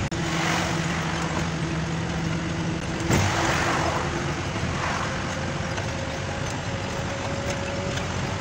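Cab noise of a BS6 Ashok Leyland Ecomet diesel truck cruising at highway speed: a steady engine hum over road rumble, with a brief louder rush about three seconds in.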